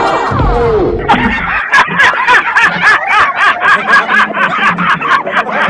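Music that cuts off about a second and a half in, then a long run of rapid, rhythmic giggling laughter.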